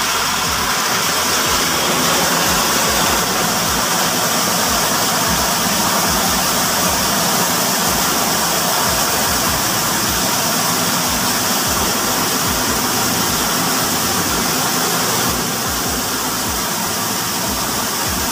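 Water rushing steadily through a newly fitted float valve into a cistern tank, with the valve open as the float is still low. The flow noise drops a little about 15 seconds in.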